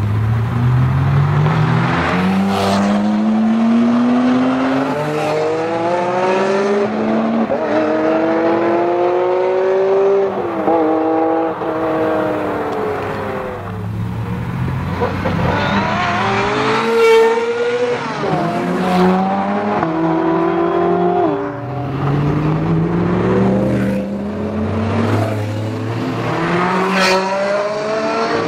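Sports car engines, among them a Porsche 911 Turbo and a Ferrari F355, accelerating hard one after another. Each engine note climbs steeply and drops sharply at every upshift, then falls away as the car passes.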